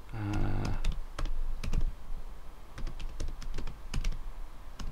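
Typing on a laptop keyboard: irregular key clicks as someone searches for something on screen, with a brief low hum near the start.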